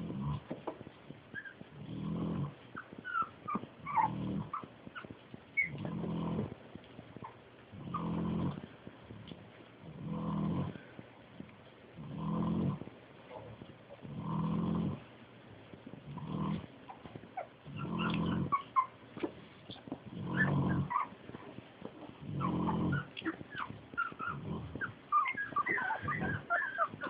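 A pig snoring in slow, regular breaths about every two seconds, under the thin, high squeaks and whimpers of newborn Jack Russell terrier puppies.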